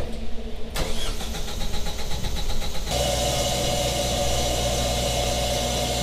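Kohler 24RCL 24 kW liquid-cooled standby generator starting: the starter cranks the engine in even pulses for about two seconds, it catches about three seconds in, and it settles into an extremely quiet, steady run at 1800 RPM.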